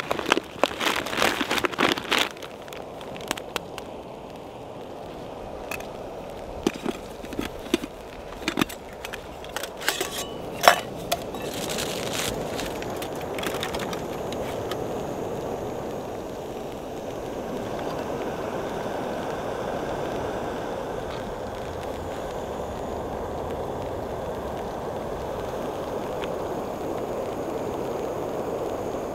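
Crinkling and rustling of a crinkly stuff sack being handled, then scattered clicks and crackles of aluminium foil being set in place. From about twelve seconds in, a small canister gas stove gives a steady hiss as it heats a kettle, which by the end has come to the boil with coffee in it.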